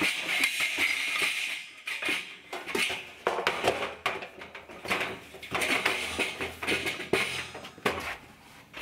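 Stainless steel sink basin clattering and scraping against its steel stand frame as it is set down and shifted into place, with a string of irregular metallic knocks and rattles.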